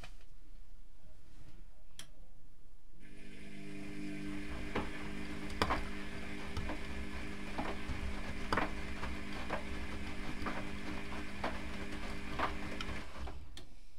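Privileg Classic 30612 front-loading washing machine during its 30 °C cotton wash: a click, then the drum motor starts about three seconds in and turns the drum at a steady speed for about ten seconds, with an even motor hum and a sharp tick about once a second. It stops abruptly near the end.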